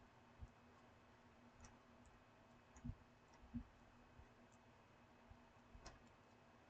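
Near silence with a few faint clicks and soft knocks, the two strongest about three and three and a half seconds in, over a faint steady hum.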